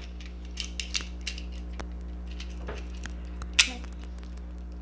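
Light plastic clicks and snaps as the parts of a small plastic Transformers figure are moved by hand, with one sharper snap about three and a half seconds in.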